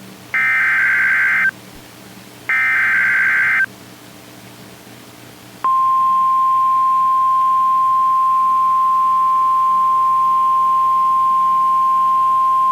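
Emergency Alert System SAME header: two identical screeching digital data bursts, about a second each and a second apart, then from about five and a half seconds in the steady single-pitch 1050 Hz NOAA Weather Radio warning alarm tone. Together they mark the start of a new warning broadcast.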